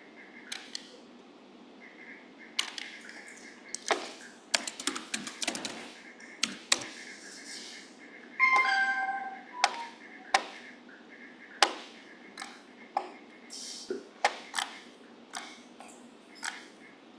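Computer keyboard and mouse clicks: scattered single clicks, with a quick run of typing about four to six seconds in. About eight and a half seconds in there is also a brief, louder sound with a few steady tones.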